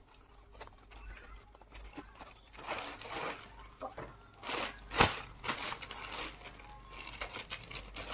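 Gift packaging crinkling and rustling as it is opened by hand, in two main bursts, with one sharp click about five seconds in.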